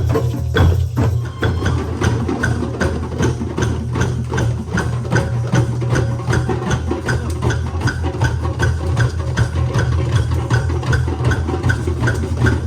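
Background music with a steady percussive beat, about three strikes a second, over a steady low hum.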